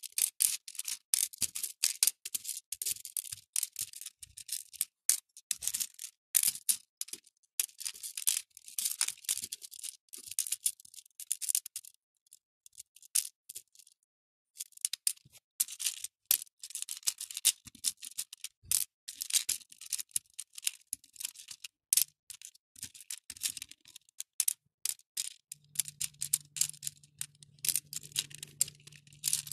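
Acrylic beads clicking and rattling against each other and the clear plastic bead tray as fingers pick them up and drop them into its compartments, in quick runs of small clicks with a pause of about two seconds near the middle. A faint low steady hum comes in near the end.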